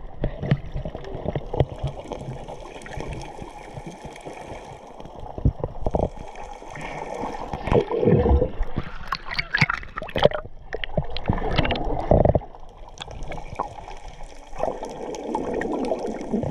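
Muffled underwater sound picked up by a submerged action camera: gurgling water with scattered knocks and clicks, and a faint steady whine in the background.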